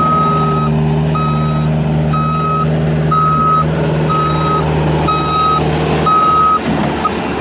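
Backup alarm of a Bobcat S250 skid steer loader beeping steadily about once a second, seven times, while the machine travels in reverse. Its Kubota diesel engine runs steadily underneath.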